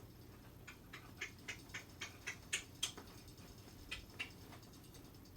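Handling noise from working on the prop's parts: a string of light, irregular clicks and taps, about three a second, bunched in the first two-thirds and stopping near the end.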